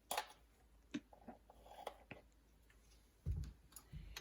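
A few faint clicks and light taps of kitchen utensils being handled as salt is measured out, with a soft low thump near the end.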